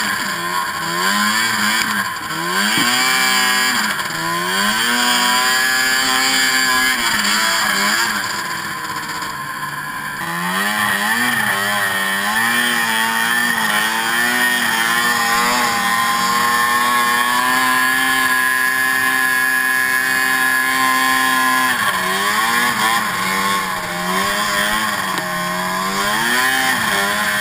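Two-stroke snowmobile engine heard close up from the rider's seat, revving up and down with the throttle. It holds a steady high pitch for several seconds in the middle, then rises and falls again near the end.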